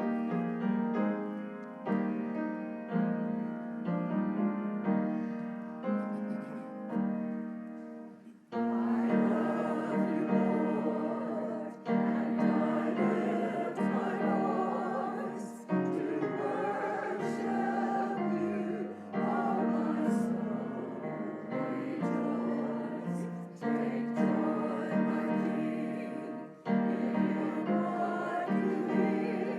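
Slow instrumental keyboard music, likely piano: sustained chords, each struck and left to fade, with a new chord every one to three seconds.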